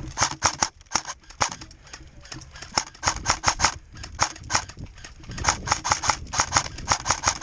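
Airsoft gun firing a rapid string of sharp shots in several quick runs with brief gaps between them.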